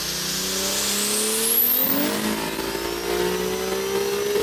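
Turbocharged Toyota 2JZ straight-six engine revving hard: its pitch climbs for about two seconds, drops, then climbs again, with a high whine rising alongside the first climb.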